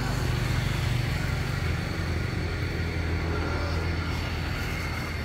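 A motor running steadily nearby, a low even hum, with a faint steady high whine above it.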